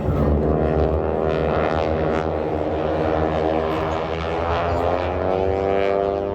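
Propeller airplane flying by at an airshow, its engine and propeller drone steady, then sinking slightly in pitch as it passes.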